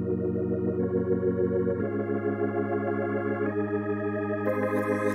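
Background music: sustained chords that change every second or two, with a hissing high layer coming in about four and a half seconds in.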